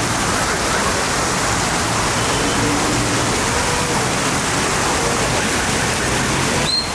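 Loud, steady rush of water from rain-season runoff, with a brief break near the end.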